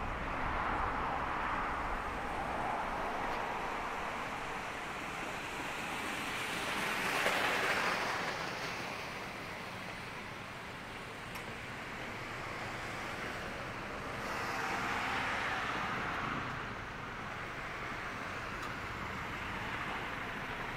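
Road traffic passing: vehicles going by one after another, each a swell of tyre and road noise that rises and fades, about three times, the loudest near the middle.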